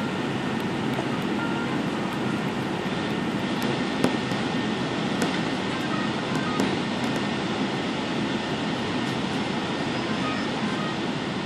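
Cabin noise inside an Airbus A380-800 on the ground after landing: a steady rumble and hiss, with a few faint ticks.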